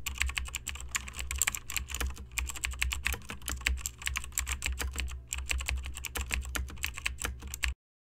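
Keyboard typing sound effect: a fast, uneven run of key clicks over a low steady hum, stopping abruptly near the end as the on-screen question finishes typing out.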